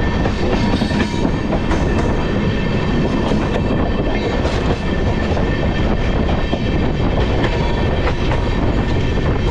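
Shaheed Express passenger train running steadily, heard from on board: a continuous running noise with the wheels clattering over the rail joints in scattered clicks.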